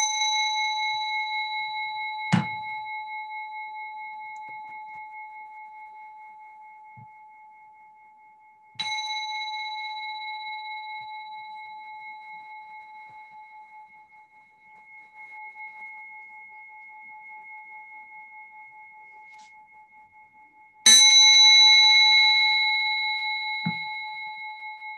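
A small singing bell is struck three times, at the start, about 9 seconds in and about 21 seconds in. Each strike rings on with several pitches at once and slowly dies away with a gentle wavering; the last strike is the loudest. A short knock sounds about two seconds in.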